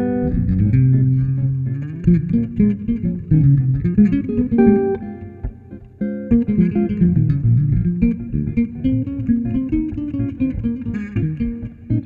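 Instrumental duet of a hollow-body archtop electric guitar and an electric bass, both plucked, with bass lines under guitar melody and chords. The playing thins to a brief lull about halfway through, then picks up again.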